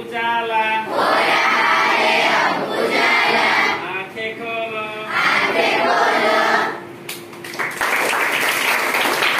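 A group of schoolgirls singing together, then breaking into clapping about seven seconds in.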